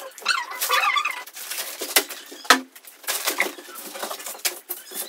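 Plastic packaging rustling and crinkling as it is handled, with scattered clicks and knocks. The sharpest knock comes about two and a half seconds in.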